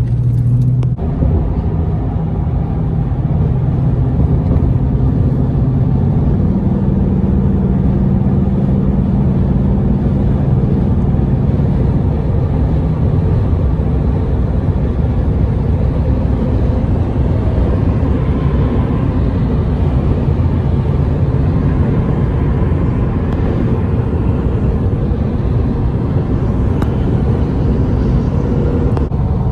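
Steady road noise and engine drone inside the cabin of a car travelling at freeway speed, a continuous low rumble.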